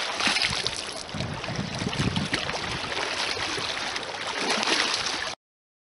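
A released white bass splashing into shallow lake water, then a steady rush of wind and lapping water that cuts off suddenly a little over five seconds in.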